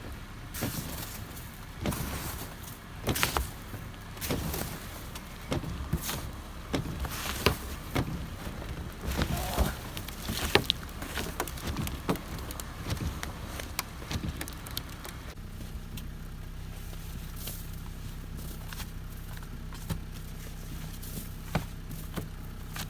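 Snow and ice being cleared off a car: an uneven run of scrapes, crunches and knocks. About fifteen seconds in these give way to a steady low hum with only a few clicks.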